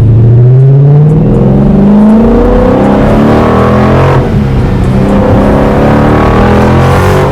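Dodge Charger Scat Pack's 392 (6.4-litre) HEMI V8 with a muffler delete, accelerating hard under full throttle: the exhaust note climbs in pitch, drops at an upshift about four seconds in, then climbs again. Heard from inside the cabin with the windows down.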